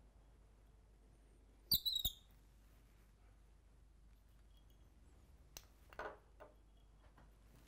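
Quiet handling noises from tying in flash at a fly-tying vise: a short high squeak with a couple of clicks about two seconds in, then a small click and a soft rustle around six seconds.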